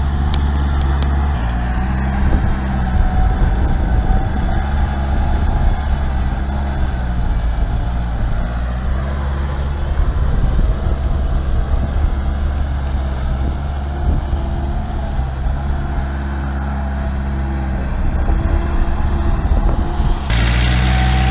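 Kubota farm tractor's diesel engine running, its pitch and loudness wavering through the middle, then steadier and louder near the end.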